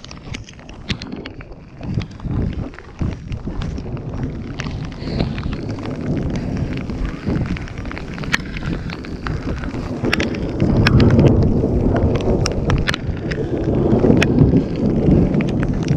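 Wind buffeting the camera's microphone as a low rumble, heaviest in gusts about ten seconds in and again near the end. Scattered sharp clicks and taps run through it.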